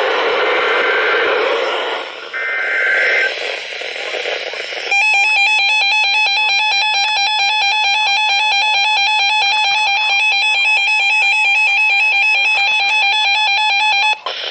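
Emergency Alert System broadcast on weak, hissy radio reception. About two seconds in comes a short screeching data burst of the alert header. From about five seconds a loud, steady, buzzy attention tone sounds for about nine seconds and cuts off just before the end.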